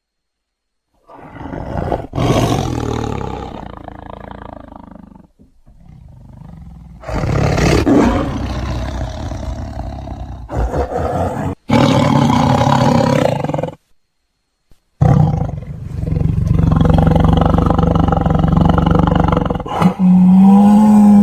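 Tigers and lions roaring and growling: a string of separate deep calls spliced one after another with abrupt cuts and brief silences, ending on a long, steady-pitched roar.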